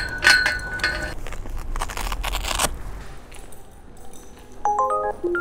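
A sharp click and clatter, then scraping and rustling from gear being handled. About a second before the end comes a quick run of short electronic beep tones at several pitches.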